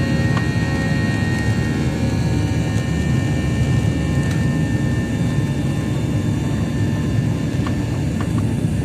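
Airplane engines during takeoff: a loud, steady drone with several steady tones over it, and a few faint clicks near the end.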